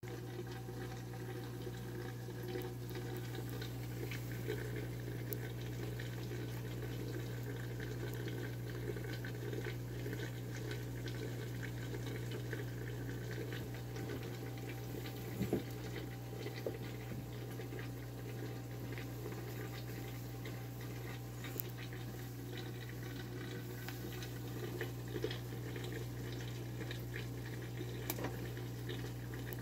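Aquarium filter running: a steady trickle of water with a constant low hum, and a few faint clicks.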